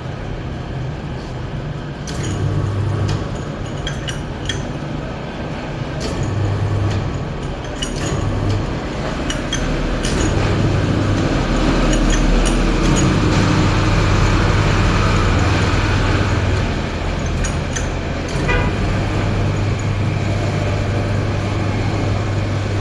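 Honing machine running with a steady motor hum that drops out and comes back several times, with scattered sharp metallic clicks, over a background of engine and traffic noise.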